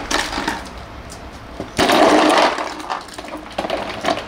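Ice crunching and rattling in a plastic cooler box as a large fish is handled and laid in on the ice, loudest in a scraping rush about two seconds in, with small clicks and knocks near the end.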